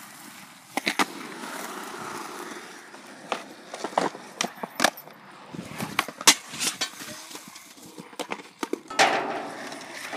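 Skateboard wheels rolling on concrete, broken by repeated sharp clacks of the board's deck and wheels hitting the ground as flip tricks are tried.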